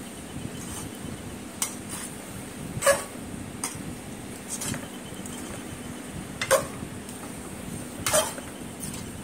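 Spatula stirring cauliflower masala in a metal pot, knocking and clinking against the pot's side every second or two, over a steady low hum.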